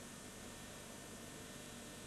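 Faint steady hiss of room tone, with no distinct event.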